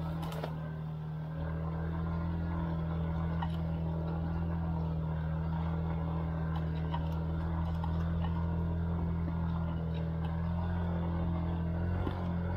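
SYM KRN scooter's engine running hard at steady, unchanging revs, under load on a steep, rocky climb that overheated its belt transmission. Light scattered clicks sound over it.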